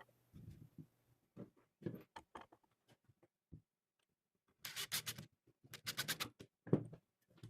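Hand work on wooden pieces: scattered light taps and knocks, with two short spells of quick scratching strokes a little past the middle.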